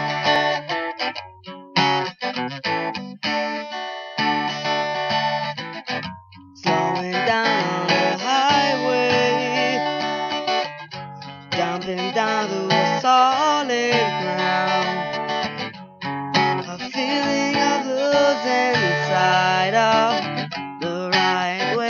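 Solo guitar playing a slow instrumental introduction of picked chords and melody lines, in phrases with short breaks between them.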